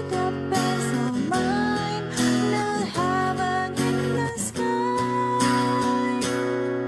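Background song led by acoustic guitar, with a melody line that settles into a long held note near the end.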